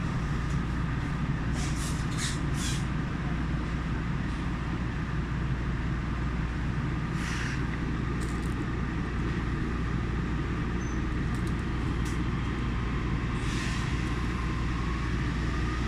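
Yui Rail monorail car running between stations, heard from inside the cabin: a steady low rumble, with short hissing bursts a few times.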